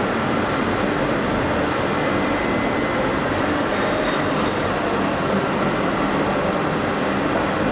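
Steady, even noise of running workshop machinery with a faint constant hum, no knocks or changes.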